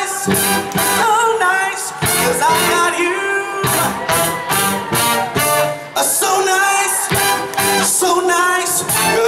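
Live band playing a soul number, with a singer over drums and electric guitar and a steady beat.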